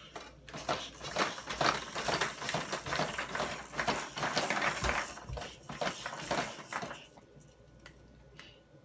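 Rapid clatter of hard plastic toys being banged and rattled on a baby's activity-centre tray, dying down about seven seconds in to a few scattered clicks.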